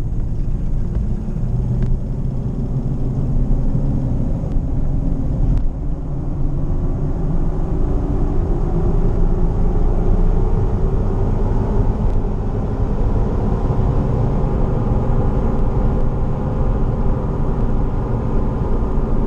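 A 2005 Ford Escape driving: low engine and road rumble under a hum from its Nitto Trail Grappler mud-terrain tires, which rises in pitch from about six seconds in as the car gathers speed, then holds steady. The tires sound a little louder, having just been rotated and aired up.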